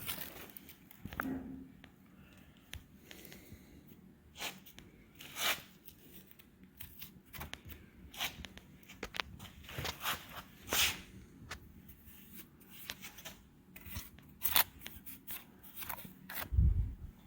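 Scattered light clicks and scrapes of engine parts being handled and turned over on the bench, with a low thump near the end.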